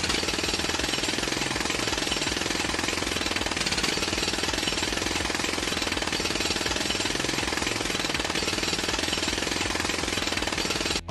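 Jackhammer hammering continuously in a fast, even stutter, cutting off suddenly at the very end.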